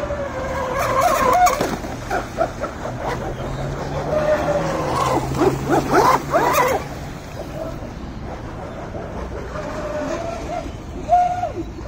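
Traxxas M41 RC racing boat's electric motor whining as it speeds across the water, its pitch rising and falling with the throttle. It has a busy stretch of rapid up-and-down sweeps from about four to seven seconds in, and a short sharp rise near the end.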